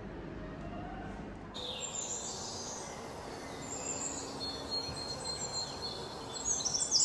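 Small birds chirping over a faint background hiss. The chirps start about a second and a half in and grow busier near the end.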